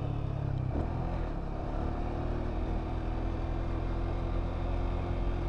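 Yamaha New Vixion Lightning's single-cylinder engine running steadily as the motorcycle rides along, heard from on board. The engine note changes once, about a second in, then holds steady.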